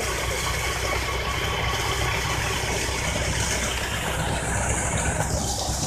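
Tractor engine running steadily, driving a PTO-mounted centrifugal water pump, with water rushing out of the pump's discharge pipe.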